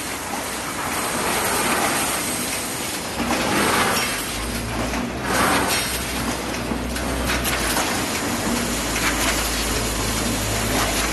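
Full-automatic wire mesh welding machine running: steady mechanical clatter with clinks and knocks of steel wire and the feeding mechanism, and a low steady hum coming in about four seconds in.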